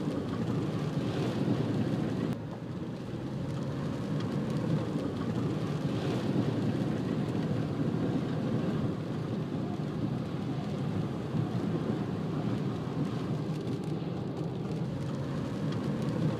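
Car driving through heavy rain on a waterlogged road, heard from inside the cabin: a steady low rumble of tyres and engine under the hiss of rain and water thrown up from the road.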